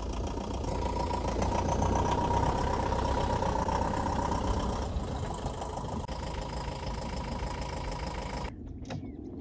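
Citroën Jumper camper van's diesel engine idling steadily. Near the end the sound cuts off suddenly, leaving a fainter low rumble.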